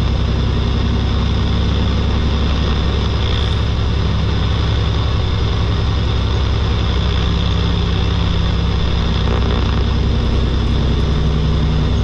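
Steady engine drone and road noise heard from inside a moving vehicle's cab, an even low hum that holds without change.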